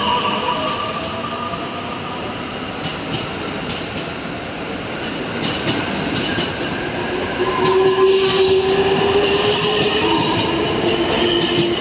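JR East 255 series electric limited-express train pulling out and gathering speed, its motor whine sliding upward in pitch. From about three seconds in, the wheels click over rail joints, and the sound is loudest about eight seconds in.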